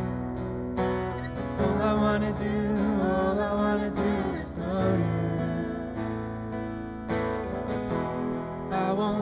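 Acoustic guitar strummed as accompaniment to a woman singing a slow worship song.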